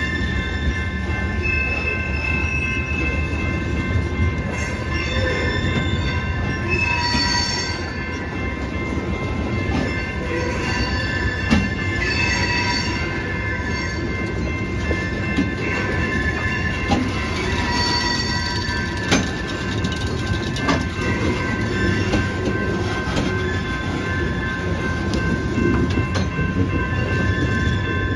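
Freight cars rolling past with their wheels squealing: several high, steady squeal tones come and go over a low rumble. A few sharp clanks are heard, including one loud one about halfway through.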